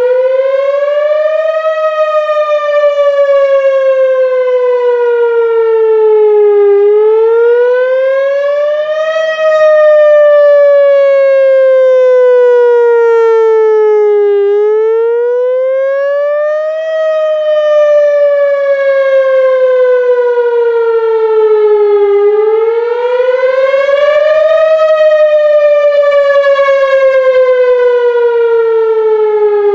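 Whelen WPS-4000 electronic tornado siren sounding its Wail signal during a test: a loud wail that rises quickly for about two seconds, then falls slowly for about five, cycling about four times.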